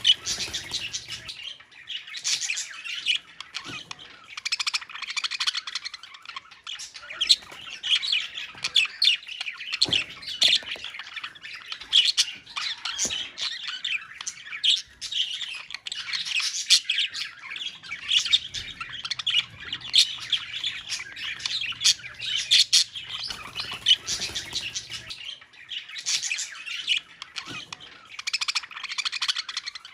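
A colony of budgerigars chattering together: many overlapping chirps, warbles and squawks, continuous and busy throughout.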